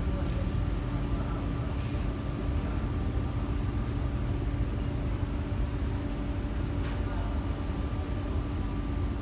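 Steady hum inside a Kawasaki & Nippon Sharyo C751B metro car standing at a station with its doors open: the car's onboard equipment running, with a low drone and a steady higher whine, and a few faint clicks.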